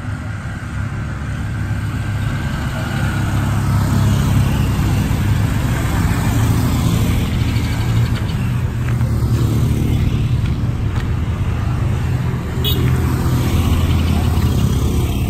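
Road traffic with motorcycles passing along a dirt road, heard as a steady low rumble.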